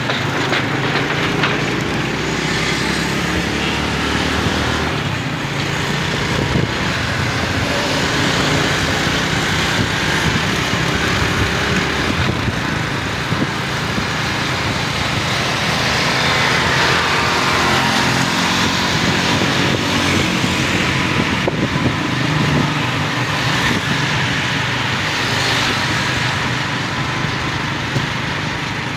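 Motorcycle running steadily on the move, heard from the bike itself, under a continuous rush of air and road noise.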